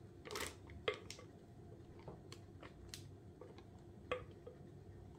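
A few faint clicks and soft scrapes, spread out, as thick cream is scraped from a glass mixing bowl into a plastic piping bag.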